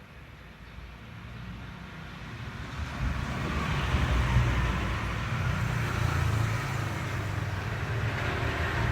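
A motor vehicle engine running, growing louder over the first few seconds and then holding steady.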